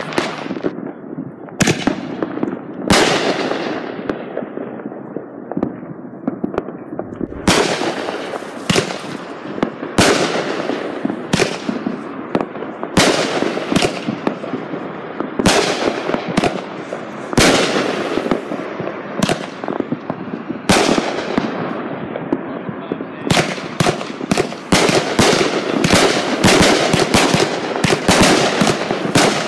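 Aerial fireworks going off: sharp bangs about a second apart with a crackling hiss between them, breaking into a rapid barrage of crackling bangs near the end.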